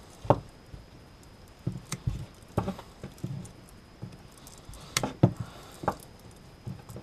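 Irregular sharp clicks and snips, about eight of them, as side cutters and a small knife cut and pick at the glued rubber boot of a military cable connector, with light handling rustle between them.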